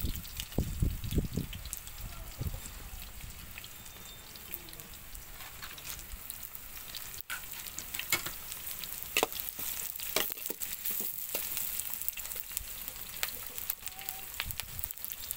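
Sliced onions and curry leaves sizzling in hot oil in a metal kadai, softening as they fry, with scattered sharp pops and crackles. A few dull knocks come in the first couple of seconds.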